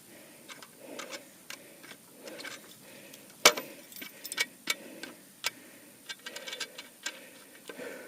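Irregular sharp clicks and taps, a louder knock about three and a half seconds in and a quick run of clicks after it, with soft breathing between.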